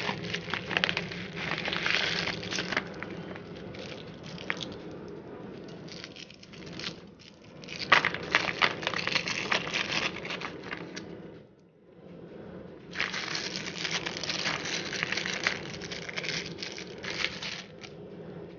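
Thin plastic food wrappers crinkling and crackling as crab sticks are torn open and peeled by hand, in bursts of dense small crackles with a brief lull about twelve seconds in.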